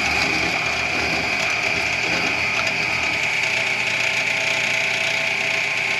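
Bench spindle moulder (tupí) running with a straight cutter in its chuck, cutting a mortise slot in wood. It makes a steady high whine at an even level.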